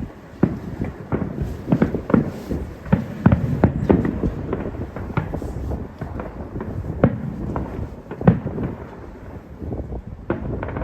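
Aerial fireworks going off in quick succession: irregular sharp bangs, several a second at times, over a continuous rumble of booming shells, with one especially loud bang about eight seconds in.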